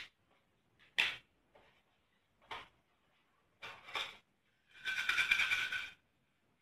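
Small plastic needle and pin cases being handled and set down: a few sharp clicks and taps, then a dense run of small clicks lasting about a second near the end.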